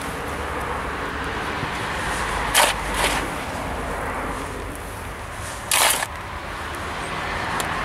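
Garden spade scooping loose soil and dropping it into a planting trench around the root balls: three short scraping strokes, two close together about two and a half and three seconds in and a longer one near six seconds. A steady outdoor background noise runs beneath.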